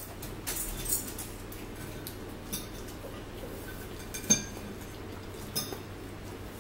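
Metal forks clicking and scraping against dinner plates while eating, a few separate clinks, the sharpest about four seconds in.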